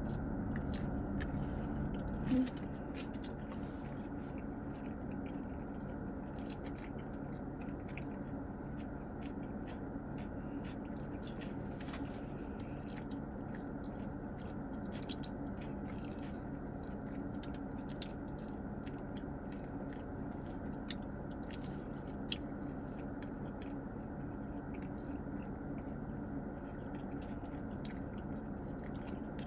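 Close chewing and mouth sounds of people eating soft, chewy pretzel twists dipped in cheese sauce, many small wet clicks and smacks, over a steady low hum. A short bump about two seconds in.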